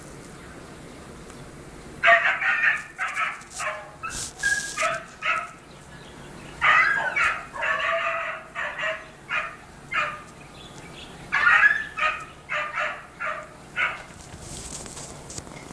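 Dog barking in quick runs of short barks, with brief pauses between the runs, beginning about two seconds in.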